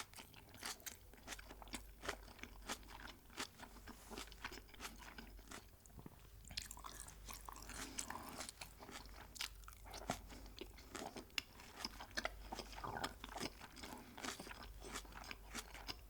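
Close-miked chewing and biting of crispy fried chicken: a dense, continuous run of crisp crunches and crackles, several a second.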